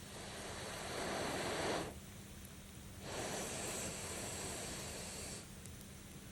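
Two long puffs of rushing air, each about two seconds and stopping abruptly, with short pauses between: air being blown into a campfire to fan the flames.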